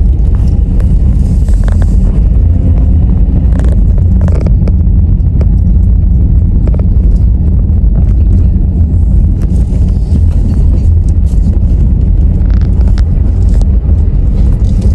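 Car moving slowly, heard from inside the cabin: a steady, deep engine and road rumble, with a couple of light knocks about four seconds in.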